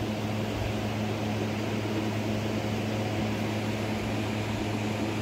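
An electric fan running steadily: an even rush of air over a constant low hum.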